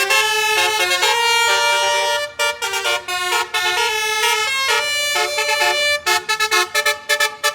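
A basuri musical bus horn playing a tune of held notes that step up and down in pitch, breaking into a quick run of short toots near the end.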